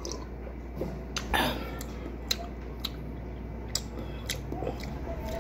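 Quiet eating-table sounds over a steady low hum: a sip and swallow from a small glass, then a few faint clicks and taps as hands handle cut cactus pieces.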